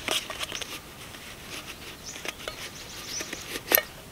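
Cord being pulled out of a cylindrical container by hand: scattered rustles and small clicks, a cluster at the start, and one sharp click, the loudest sound, near the end.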